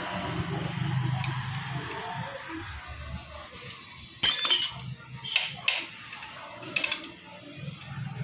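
Metal clinks from steel tools and engine parts during work on a Royal Enfield Thunderbird 350's timing gears. One sharp ringing clink comes about four seconds in, followed by a few lighter clicks. A low steady hum fades out over the first few seconds.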